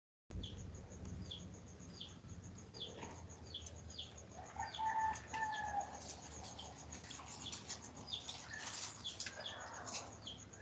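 Birds chirping faintly, a short falling high chirp repeated about twice a second, with a longer, lower call about four and a half seconds in and another near the end.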